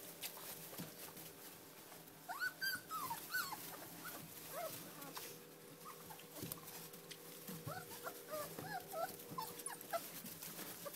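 Newborn puppies squeaking and whimpering in short, faint rising-and-falling cries, scattered throughout, as they jostle each other to nurse.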